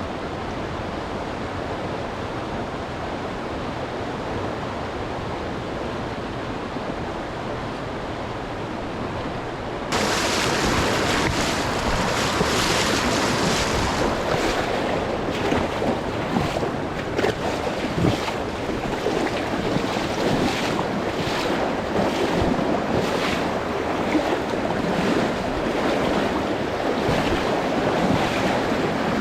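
River water rushing, a steady noise with no tones in it. About ten seconds in, the sound abruptly turns louder and brighter, with many short irregular surges.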